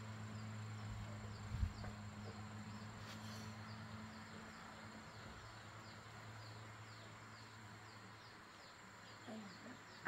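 Insects chirping in short, high, falling notes, about three a second, over a faint low hum that fades away after about six seconds.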